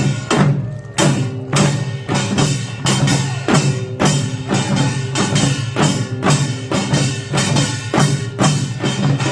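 Korean pungmul percussion ensemble playing a driving rhythm, sharp strikes about two to three a second over a steady low ring, with a brief break in the beat about half a second in.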